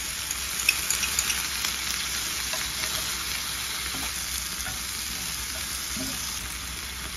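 Soybean sprouts and Spam slices sizzling steadily in a hot cast iron grill pan, just after a watered-down slurry has gone in. Chopsticks stir and toss the sprouts, and a few crackling pops come in the first second or so.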